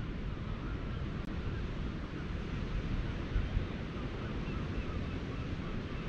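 Wind rumbling on the microphone over the steady wash of surf breaking at the foot of the cliffs.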